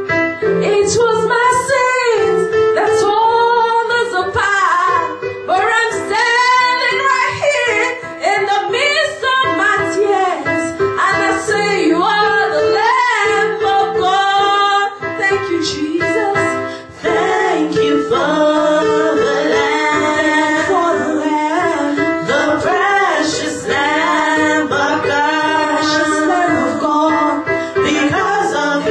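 Gospel praise and worship song: a woman singing the lead over steady instrumental accompaniment.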